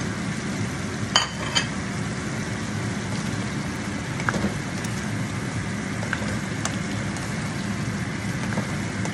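Pork ribs in sauce with bell pepper and green chilies sizzling and simmering steadily in a metal pan while being stirred with a spoon. Two sharp, ringing clinks come about a second in.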